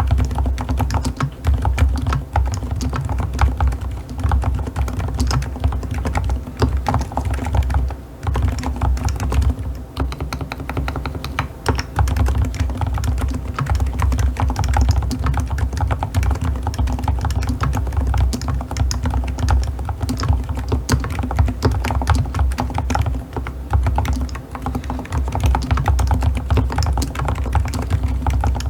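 Continuous typing on a Keychron K8 Pro Max mechanical keyboard fitted with low-noise K Pro silent white switches: a fast, steady run of keystrokes, with short pauses about eight and ten seconds in.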